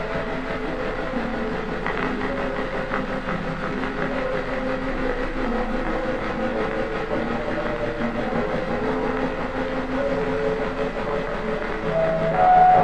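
Hazy ambient music: several sustained, overlapping tones that shift slowly under a wash of hiss. A new, higher held tone enters and the level rises near the end.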